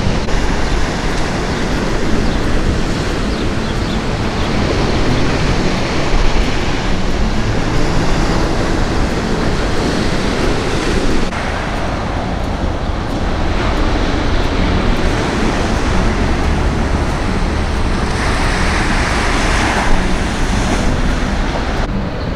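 Sea waves breaking and washing onto the shore, with wind buffeting the microphone; one wave breaks louder near the end.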